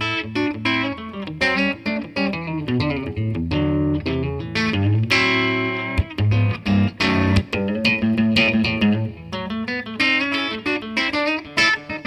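Custom-built Telecaster-style electric guitar played solo, picked with both pick and fingers: fast runs of short single notes with a few ringing chords around the middle.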